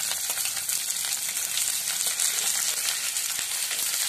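Chopped onion pieces, with ginger and garlic, sizzling steadily in hot oil in a non-stick pan, with a wooden spatula stirring and scraping through them.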